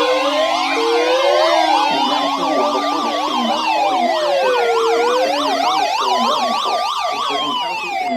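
Several sirens sounding at once: a slow wail rising and falling about every four seconds over fast, rapidly warbling yelps. A steady high tone underneath stops about a second in.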